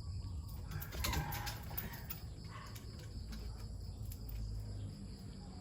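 Steady high-pitched insect chirring over a low rumble, with a brief louder sound about a second in.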